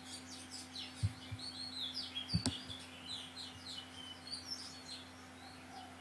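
Birds chirping continually in the background, with a faint steady hum and a few soft clicks or knocks, one about a second in and a sharper one near the middle.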